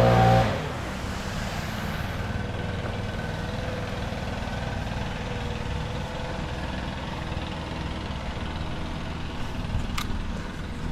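A loud running engine cuts off about half a second in, leaving a steady low engine rumble, with one sharp click near the end.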